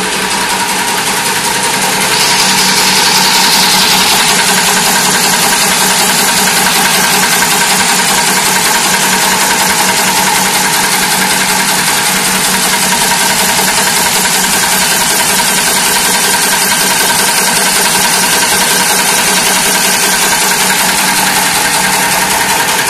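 Automatic jewelry chain laser welding machine running: a steady, fast mechanical rattle with a few constant hum tones, getting a little louder about two seconds in.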